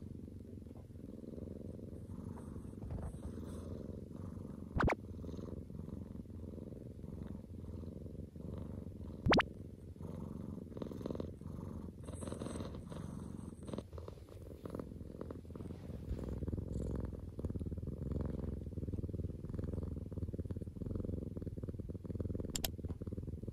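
Domestic cat purring steadily, a continuous low rumble. Two short sharp clicks sound over it, about five and nine seconds in.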